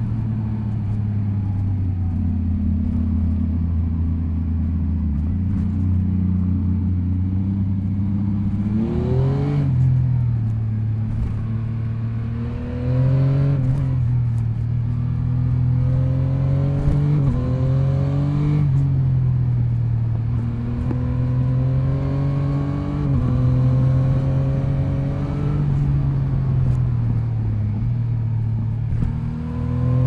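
Yamaha MT-09 SP's inline-three engine heard from on board while riding, running steadily at first, then revving up and dropping back again about six times under repeated acceleration.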